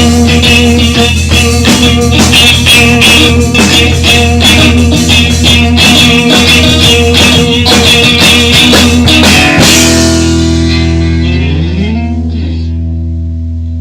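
Loud instrumental pop-rock music: drums and guitar playing a driving beat, which stops about ten seconds in, leaving a held chord ringing on with a few sliding notes.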